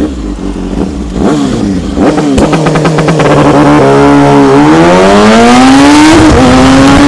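Kawasaki Ninja ZX-6R inline-four sport bike engine revved in short blips, then held at steady high revs before pulling away hard, its pitch climbing through the gear with an upshift about six seconds in.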